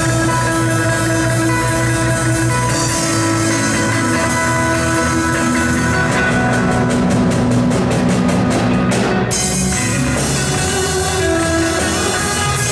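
Live instrumental rock band: drum kit and electric guitars playing together. From about six seconds in, a run of repeated strokes speeds up and cuts off sharply a little past nine seconds, then the full band plays on.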